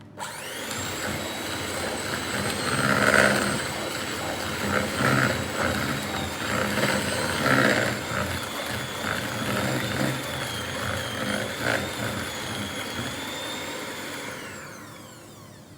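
Electric mixer beating brownie batter in a bowl: the motor whines up to speed as it is switched on, runs steadily with irregular louder rattles, and winds down near the end.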